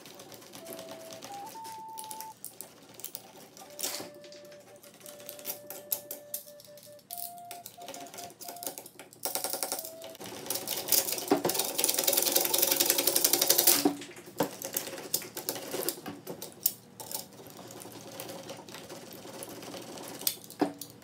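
Utility knife blade scraping a hardened ramen-noodle-and-super-glue filler patch on a color guard rifle stock, in quick scratchy strokes. The scraping is loudest and most continuous from about nine to fourteen seconds in.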